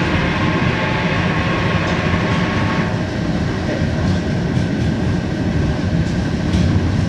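Electric tram running along the track, heard from inside the passenger compartment: a steady rumble of wheels on rail and running gear. A high whine over the rumble stops about three seconds in.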